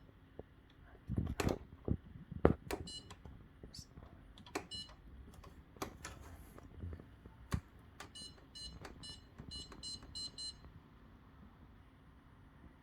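Whirlpool dishwasher control panel beeping as its buttons are pressed, with knocks and clicks from the presses. Near the end comes a quick run of about three beeps a second as the setting is stepped through.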